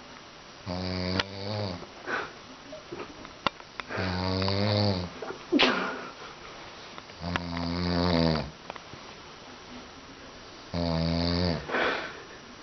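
Heavy rhythmic snoring: four long, drawn-out snores about three seconds apart, with short snuffles between them.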